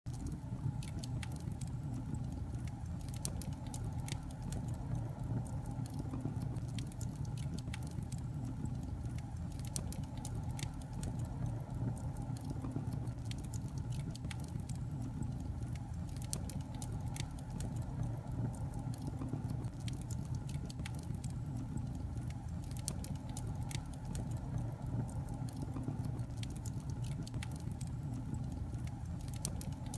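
Fire burning in a fireplace, crackling with frequent irregular sharp pops and snaps over a steady low rumble of the flames.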